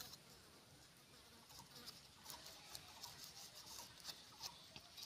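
Near silence with faint, scattered crackles and ticks from fingers handling crisp fried papri wafers and dabbing tamarind chutney onto them.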